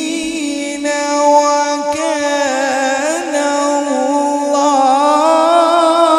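Male Quran reciter chanting tilawat into a microphone, holding one long melodic note on the end of a verse. The pitch wavers and glides through ornaments, and the note swells louder and brighter about two-thirds of the way through.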